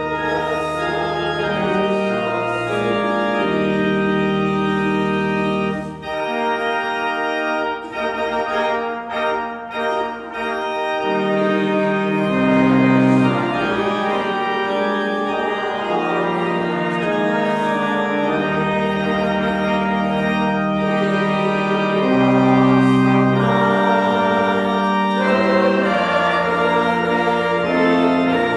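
Church organ playing a hymn in full, sustained chords, with a few short breaks between phrases about a third of the way through.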